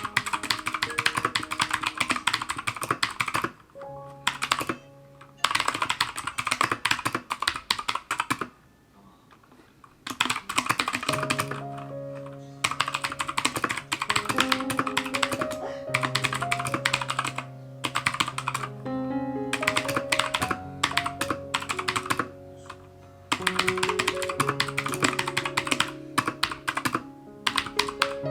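Keychron K2 mechanical keyboard with clicky Gateron Blue switches being typed on in quick runs of keystrokes, with short pauses between runs and one longer pause about a third of the way through.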